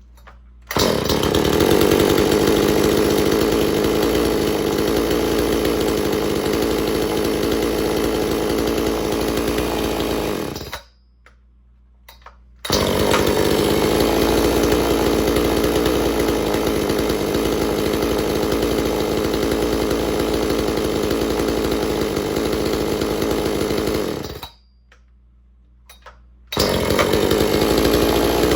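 Two-stroke chainsaw engine running at a steady speed, in three stretches with two breaks of about two seconds between them.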